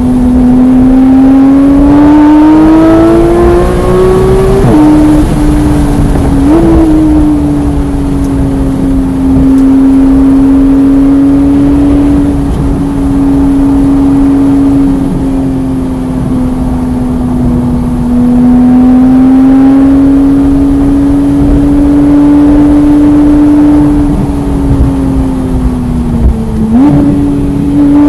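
Porsche 991.1 GT3's naturally aspirated flat-six running hard on track: the revs climb over the first few seconds, break at a gear change about five seconds in, then hold nearly steady for a long stretch at high load. Near the end the pitch dips and jumps sharply back up.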